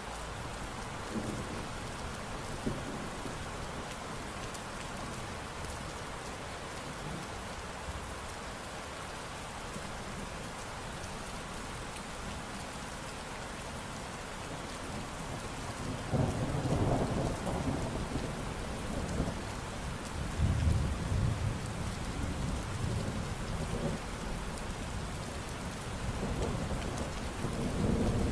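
Steady rain falling, with low rolls of thunder rumbling in about halfway through, again a few seconds later and near the end.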